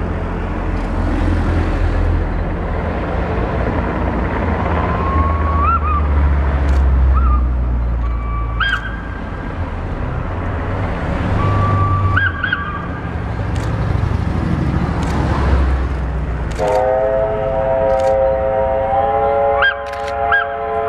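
Two SNCF 241 'Mountain' steam locomotives double-heading a train across a long viaduct: a steady deep rumble that swells and fades as the exhaust surges. Short honking calls come through now and then. About four seconds before the end, a whistle sounds, several notes held together and stepping up once, with short honks over it.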